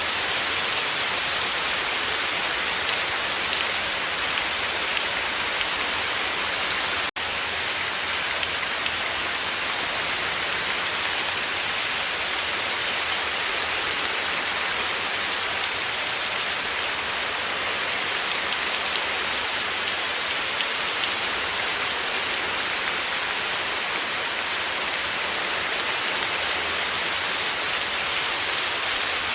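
Heavy rain pouring steadily, a dense even hiss of drops with no thunder. It cuts out for an instant about seven seconds in, then resumes unchanged.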